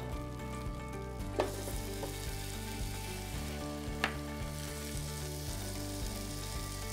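Olive oil and butter sizzling in a frying pan, with two light knocks, about a second and a half in and again about four seconds in.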